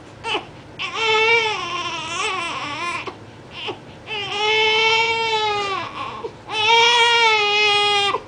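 Seven-week-old baby crying in fussy wails: three long cries of about two seconds each, the first wavering in pitch, the later two held more evenly.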